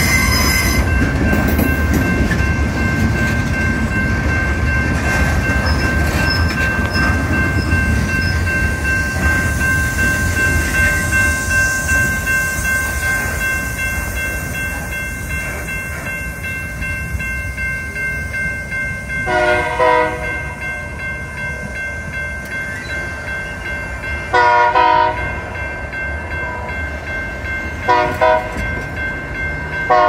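Long freight train of boxcars rolling slowly past and away, its low rumble of wheels on rails fading over the first half, while the grade-crossing bell rings steadily. In the second half the locomotive's air horn, up ahead, blows the grade-crossing signal: two long blasts, a short one, then a long one starting at the very end.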